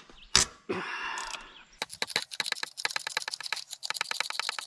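A sharp metal clank of a wrench on a steel mounting nut, a short scrape, then a quick, even run of ratchet clicks, about eight a second, as a ratcheting box-end wrench spins the freed nut off the hydraulic pump's mounting bolt.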